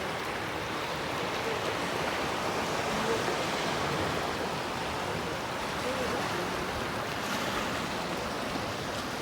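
Sea waves breaking on a beach: a steady, continuous wash of surf with no distinct single crashes.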